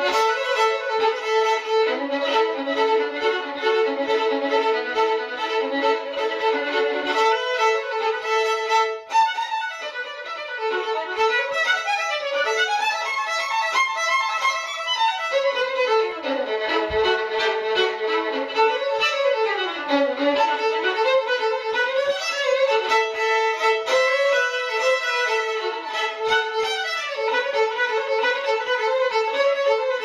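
Violin music: a bowed melody played over a held note, with sliding runs about halfway through.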